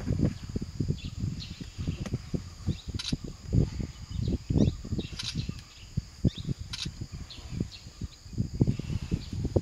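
Scrubland ambience: a steady high insect drone and scattered bird chirps, with three sharp ticks about two seconds apart, over irregular low thumps and rumbles that are the loudest part.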